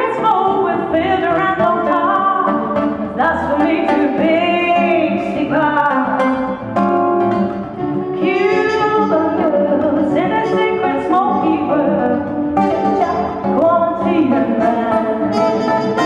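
A woman singing a song, accompanied by a strummed and plucked acoustic guitar.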